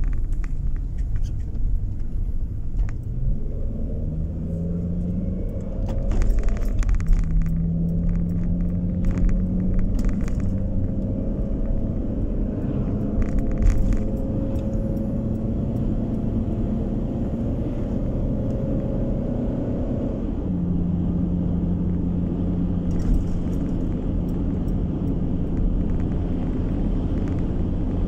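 A car's engine and tyre rumble heard from inside the cabin while driving: the engine note falls as the car slows through a junction, then climbs steadily as it speeds up, dropping back a couple of times. A few brief rattles sound around 6 to 7 seconds in and again around 13 to 14 seconds in.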